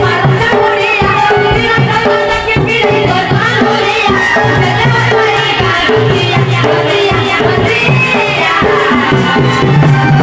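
Live Sambalpuri danda folk music: a two-headed barrel drum played in a steady rhythm, with women singing into microphones over sustained accompaniment.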